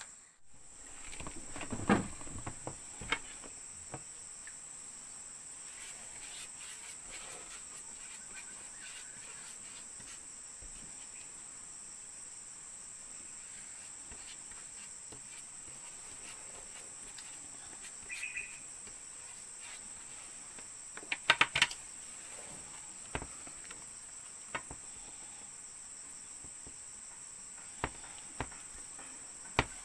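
Insects chirring in a steady, high, continuous drone, with a few scattered sharp clicks or taps, several in quick succession about two-thirds of the way through.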